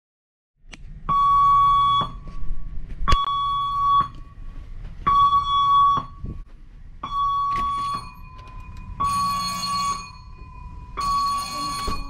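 Cruise ship's emergency alarm sounding for an evacuation drill: a loud electronic tone blaring for about a second, then a second's gap, over and over. From about two-thirds of the way through, a fainter steady tone fills the gaps.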